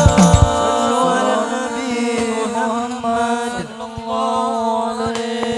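Ending of a sholawat song. The drum beat stops about half a second in, and the voices carry on alone, holding and bending the final chanted notes.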